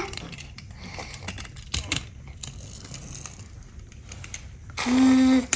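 Small toy construction vehicles handled and moved on a tabletop, with faint clicks and taps. Near the end a voice hums one steady note for about half a second.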